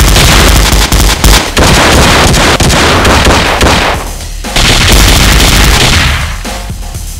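Rapid automatic gunfire in dense volleys, action-film sound effects for a staged shootout, with a brief lull about four seconds in and the firing easing off near the end.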